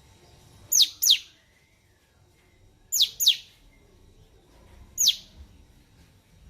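Cucak cungkok calling: short, sharp whistled notes that sweep down in pitch. They come in quick pairs about two seconds apart, then a single note near the end.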